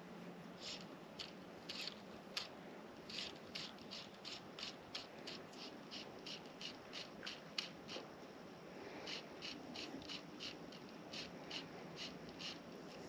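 Fly line being stripped in by hand during a streamer retrieve: a short scratchy rub with each pull, about two to three a second, with a brief pause about eight seconds in. A faint steady hiss lies underneath.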